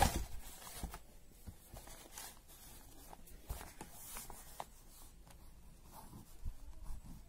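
A sheet of paper turned over with a brief loud rustle at the start, then a pen making faint scratches and light taps on paper as it writes.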